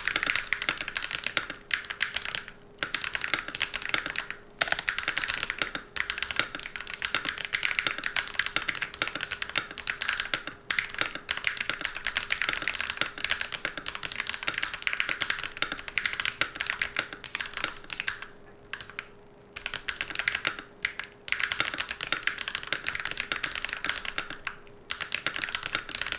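Mechanical keyboard being typed on fast and continuously, at about 82 words a minute: a dense run of keystroke clacks with a few brief pauses. The switches have a fairly loud, marbly sound.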